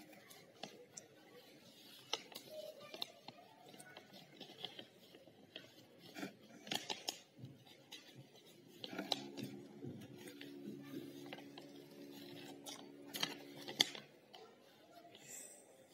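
Paper journal pages being handled and turned by hand, with scattered soft rustles and crinkles. A steady low hum comes in after about nine seconds and stops about two seconds before the end.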